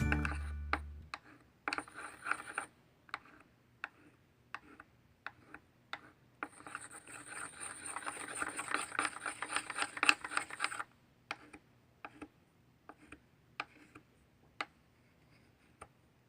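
A pencil stirring a mix of glue, shaving cream and purple paint in a bowl: scattered taps and scrapes against the bowl, with a spell of steady stirring in the middle.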